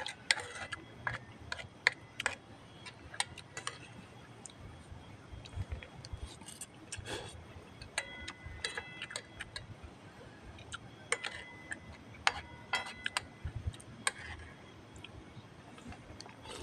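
Chopsticks clicking and tapping against a metal frying pan as noodles are picked out of it: irregular sharp clicks, several a second in places.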